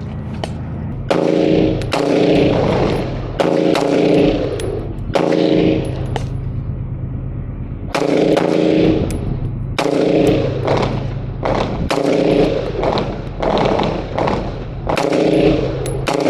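Firearm being shot on a shooting range: a long series of sharp gunshots, fired in quick groups of two or three with short pauses between them.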